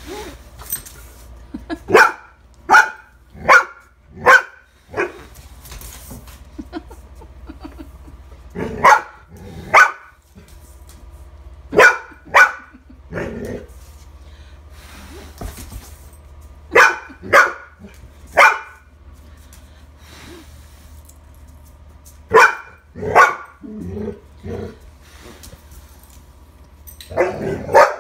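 Young dog barking at a leaf on the floor, out of wariness of it. Single short, sharp barks come in groups of two to four with pauses of a few seconds between, and a quicker run near the end.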